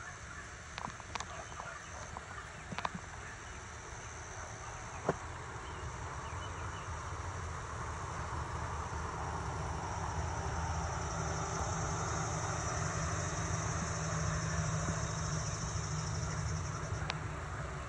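Steady insect chorus, a high even drone that grows stronger in the second half, over a low rumble that swells through the middle and latter part. A few sharp clicks in the first five seconds.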